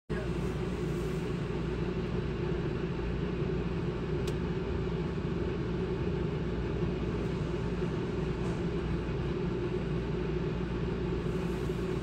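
Houghton Belair 2800 rooftop RV air conditioner running steadily: an even low hum with fan and airflow noise, heard from the cabin beneath it. A quiet unit, reading about 62 decibels at the ceiling vent.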